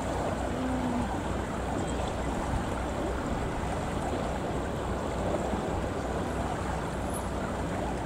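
Steady rushing background noise with no distinct events.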